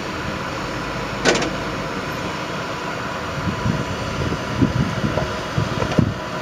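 Nissan Frontier Pro-4X crawling down a rock ledge under steady vehicle noise, with a sharp knock about a second in and several low thumps in the second half as it works over the rock.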